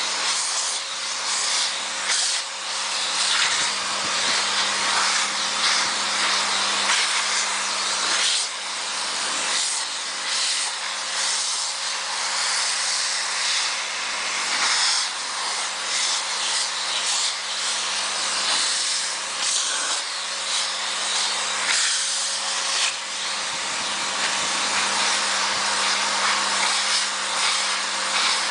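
Vacuum cleaner running continuously while its nozzle is passed over a dog's coat to pull out loose fur: a steady motor hum under a rushing airflow hiss that rises and dips a little as the nozzle moves.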